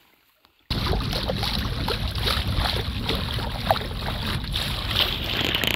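Small boat's outboard motor running steadily under way, with water rushing along the hull and wind on the microphone; it starts abruptly less than a second in after near silence.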